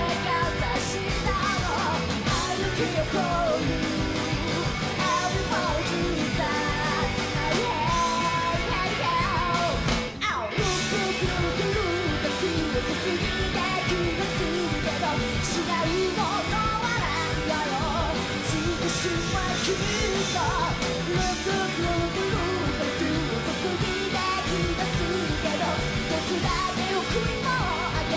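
Live rock band playing: a woman singing lead over electric guitar, bass and drums, with a momentary drop in the music about ten seconds in.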